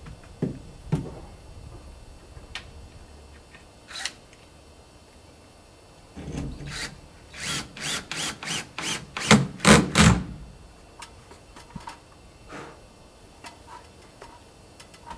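A drill driving a screw through a polycarbonate panel into the wooden frame, run in one longer burst and then about eight short bursts over some four seconds, a little past the middle. A few knocks and a click come before it.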